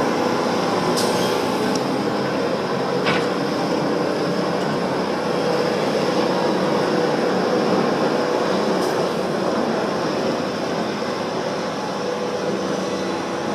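Diesel engine of heavy construction machinery running steadily, with a few faint clicks about one, three and nine seconds in.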